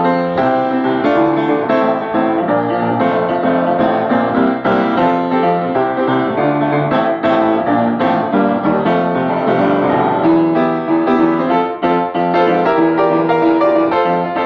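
Solo piano being improvised in a jazz style: chords in the left hand under a busy right-hand line, played continuously.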